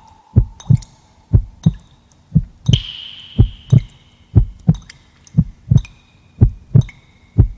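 Heartbeat sound effect: a steady lub-dub of paired low thumps, about one double beat a second. Faint held high tones sound behind it, changing pitch every second or two.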